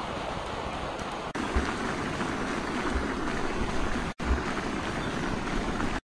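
Steady rushing of flowing river water, with a few low wind thumps on the microphone.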